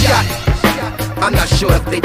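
Hip hop track: a steady, bass-heavy beat with a voice rapping over it.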